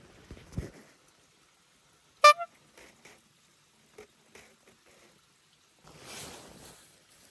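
A sharp metallic clink with a brief ringing tone about two seconds in, like metal camp cookware or a utensil being knocked, followed by a few light taps and a soft rustle near the end.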